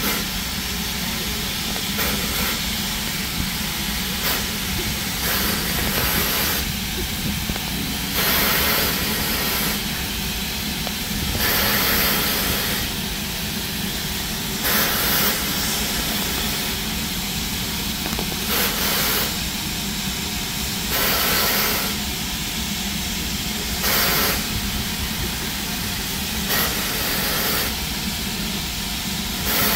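LMS Black Five steam locomotive 44871 standing at a platform, hissing steam steadily over a low rumble, with louder surges of hiss every two to three seconds.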